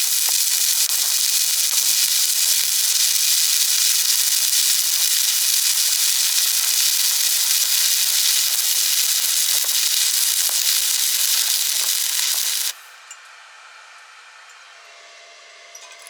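Stick-welding arc crackling and hissing steadily, then cutting off abruptly about three-quarters of the way through as the arc is broken. A few light taps follow near the end.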